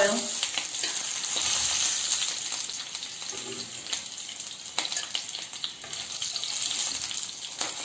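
Chicken breast cutlets frying in olive oil and butter in a skillet: a steady sizzling hiss with scattered crackles and a few sharper pops.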